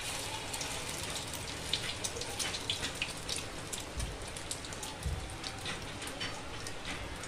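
Hot oil sizzling and crackling around egg-and-breadcrumb-coated chicken pieces shallow-frying on a flat griddle pan (tawa). Two dull low bumps come about four and five seconds in.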